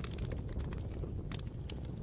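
Campfire burning, with a steady low rumble of flames and irregular sharp crackles and pops from the burning wood.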